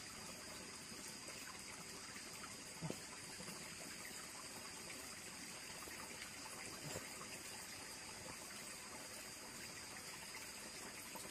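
Faint, steady trickle of a shallow rocky stream, with two faint knocks, about three and seven seconds in.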